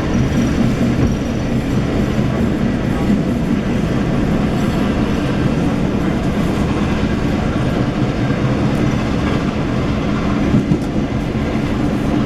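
A passenger train running along the track, heard from on board: a steady rumble of wheels on rails with some clickety-clack.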